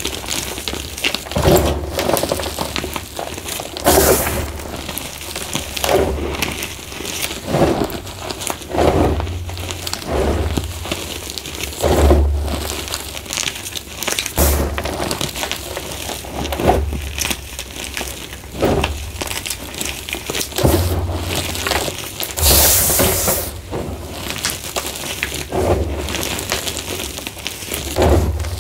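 Hands squeezing and crushing soft, crumbly reformed gym chalk, with repeated gritty crunches as lumps break apart and powder sifts between the fingers, roughly every second or two.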